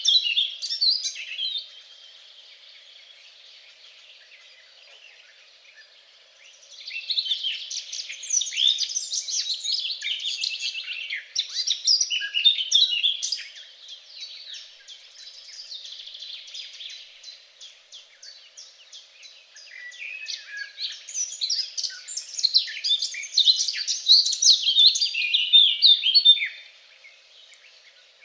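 Songbirds singing: fast, high twittering and chirping in three loud bouts, with quieter chirping in the gaps between.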